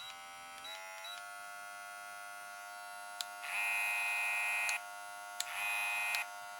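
VGR V682 cordless hair clipper running, with short beeps as the speed button is pressed and the motor's pitch stepping up twice about a second in. Twice, about 3.5 and 5.5 seconds in, it turns louder and brighter for a second or so.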